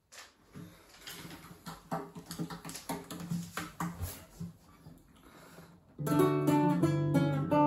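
Irregular faint knocks and rustles as a guitar is handled and brought into playing position. About six seconds in, a classical nylon-string guitar starts playing chords, much louder.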